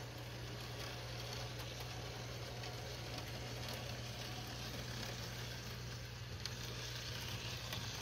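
Model Thomas the Tank Engine locomotive running along its track: a steady, quiet whir and rattle of the motor and wheels on the rails, with a constant low hum underneath.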